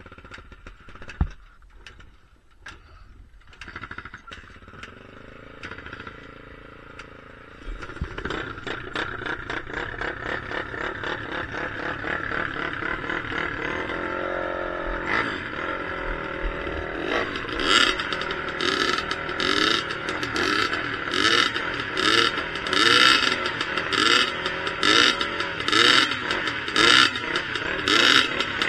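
Dirt bike engine being ridden. It is quiet at first with scattered clicks and clatter, then picks up and runs louder about eight seconds in. In the second half the revs rise and fall over and over, in repeated louder surges.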